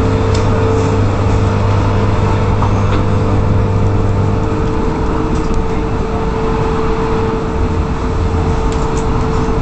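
Electric suburban train running at speed, heard from inside the carriage: a steady rumble of wheels on rail with a constant hum. A low drone drops away about halfway through.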